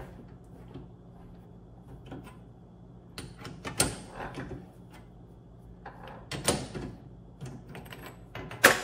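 A chuck key turning in a mini lathe's three-jaw chuck to loosen it, with scattered metallic clicks and clinks as the jaws open and the tube workpiece is taken out. The loudest clink comes near the end, over a low steady hum.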